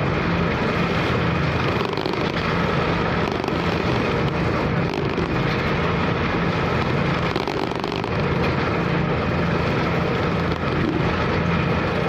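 A car ferry's engine drones steadily under a constant rush of strong wind and waves, with no break or change.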